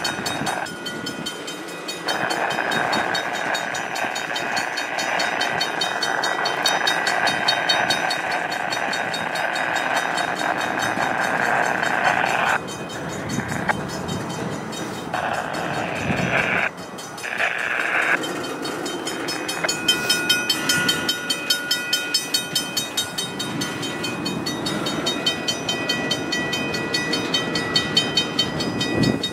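Double-stack container train's well cars rolling slowly past, steel wheels rumbling on the rails. In the second half the wheels clack rhythmically over rail joints, about two clacks a second, under a few steady high ringing tones.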